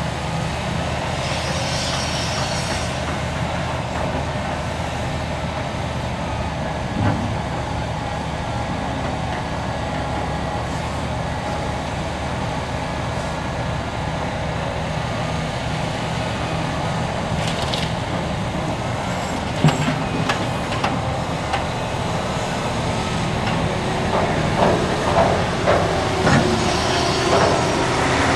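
Liebherr R974B hydraulic excavator's diesel engine running steadily under load as it swings and digs, with dump trucks idling alongside. Near the end comes a run of knocks and clatter as the bucket digs into rocky spoil.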